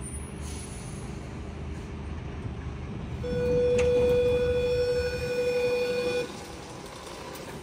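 Train horn sounding one long steady blast of about three seconds, starting about three seconds in, over the low rumble of a train running.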